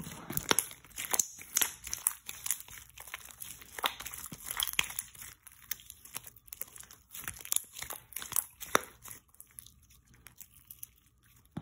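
Clear putty slime mixed with hair gel being stretched and folded by hand, giving many small irregular clicks and crackling pops, which thin out near the end.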